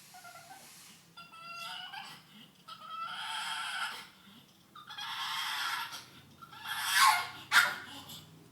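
Pug making odd dolphin-like vocal noises: high squeaky whines, then several breathy honking bursts, the loudest two near the end.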